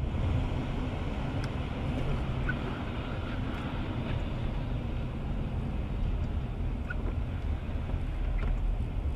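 Steady road noise inside the cabin of a car driving on a wet highway: a low rumble of tyres and engine, with a few faint ticks.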